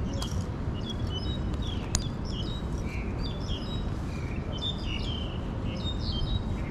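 Small birds chirping repeatedly in short, high calls, over a steady low background rumble, with a single sharp click about two seconds in.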